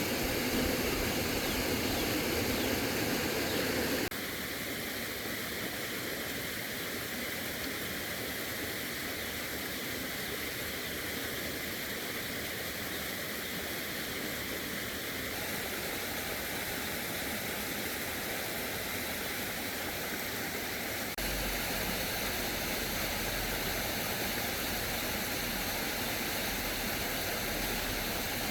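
Steady rushing outdoor noise with no clear pitch, changing abruptly in level and colour twice, about four seconds in and near two-thirds of the way through.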